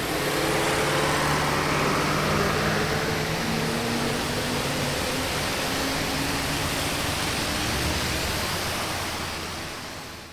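Highway traffic on a wet road: the steady hiss of tyres on wet pavement, with a vehicle's low engine drone in the first few seconds. The sound fades out near the end.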